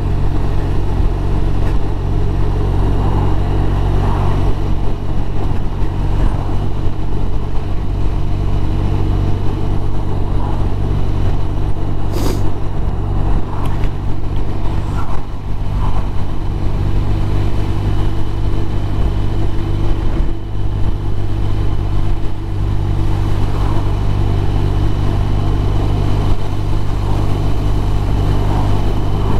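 BMW R1200RT's flat-twin boxer engine running steadily while the bike cruises at about 40 mph, mixed with wind rush and tyre noise on a wet road. One brief click about twelve seconds in.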